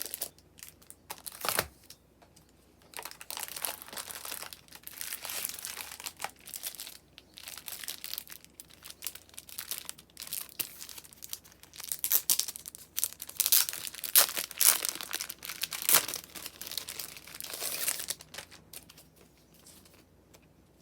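Packaging crinkling and tearing as it is unwrapped by hand, in irregular bursts that are busiest and loudest in the second half, with a sharp click about a second and a half in.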